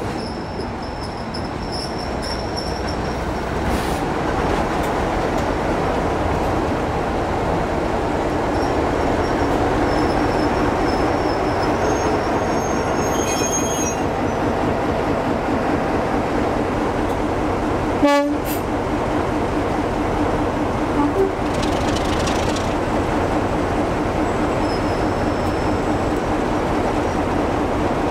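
BR Class 33 diesel locomotives, with their Sulzer engines running, and the train's coaches rolling along the track, growing louder over the first several seconds. A steady low engine note comes through, and there is a single sharp click about 18 seconds in.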